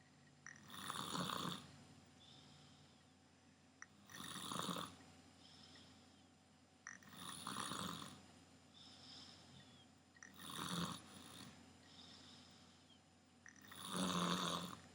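Snoring: five loud snores about a second long, roughly every three seconds, with softer breaths between them.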